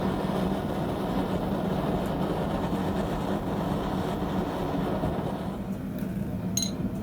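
A steady rushing noise over a constant low hum, which dies down about six seconds in, followed by a brief high metallic ring.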